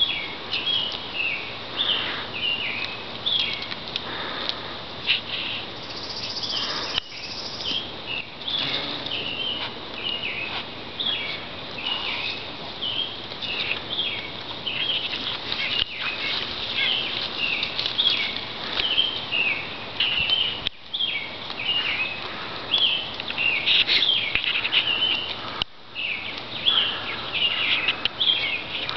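Many small birds chirping without a break: a dense run of short, high notes, a few each second, with a brief higher buzz about six seconds in.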